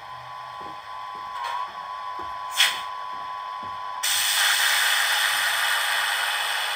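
Digital sound functions of a Piko H0 model DB class 143 electric locomotive standing still, played through its small onboard speaker: a steady high whine with a sharp click about two and a half seconds in, then a sudden loud hiss from about four seconds in that slowly eases off.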